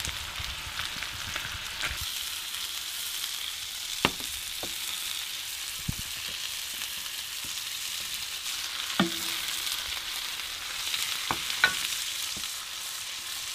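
Lamb chops sizzling on a gas barbecue's flat hotplate: a steady frying hiss, with a few sharp clicks and knocks as the food is handled.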